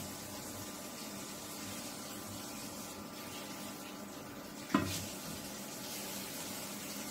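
A metal frying pan of oil on an electric hob gives a single sharp clank with a brief ring as it is handled, about two-thirds of the way through. Near the end a breaded potato piece goes into the oil with a soft sizzle, over a steady low hum.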